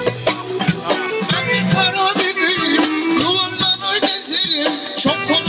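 Live band playing amplified music with a drum kit keeping the beat and a wavering melody line over it.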